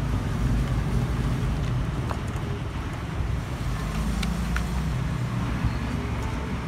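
Steady low rumble of road traffic, with a couple of faint clicks about four seconds in.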